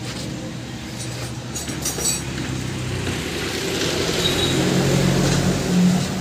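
A motor vehicle's engine running steadily, growing louder and higher in pitch over the last two seconds, with a few light metallic clinks about a second and a half in.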